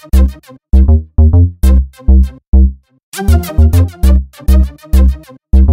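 Background electronic music: a drum-machine beat with heavy bass hits under short synth notes, breaking off briefly about three seconds in before picking up again.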